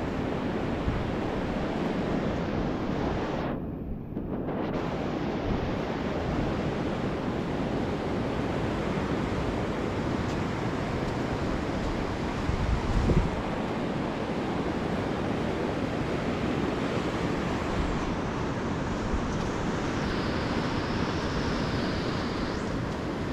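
Surf washing onto a shallow sandy beach, with wind buffeting the microphone, strongest in a gust about thirteen seconds in.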